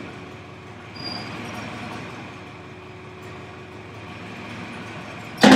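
Bedmaster straw spreader running with a steady mechanical drone and a faint hum while its hydraulic discharge chute is swung, with a brief high whistle about a second in. A sharp loud knock near the end.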